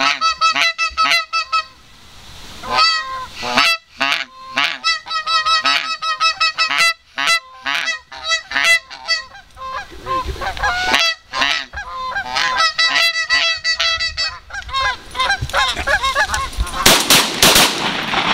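Canada goose honks and clucks, many short calls in quick runs, going on throughout. A loud, steady rush of noise comes in near the end.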